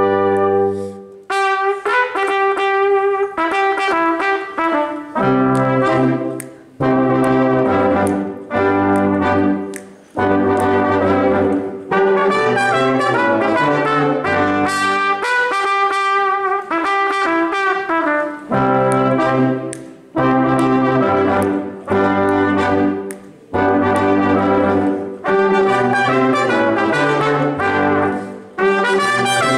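Brass quintet (two trumpets, French horn, trombone and tuba) playing a gospel Christmas arrangement. Full chords come in short phrases with brief breaks between them, the trumpet leading over a tuba bass line.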